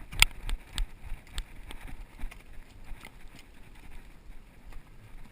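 Horse hooves knocking on rocky ground at a walk, a sharp hoofbeat about every half second, with the loudest strike near the start.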